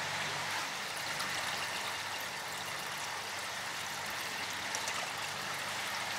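Steady flow of water splashing and trickling into a lobster holding tank.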